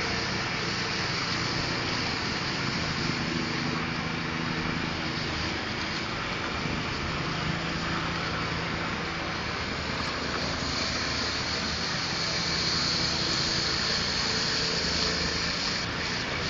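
Concrete power trowel's small petrol engine running steadily under load. A high hiss over it grows louder a little past the middle.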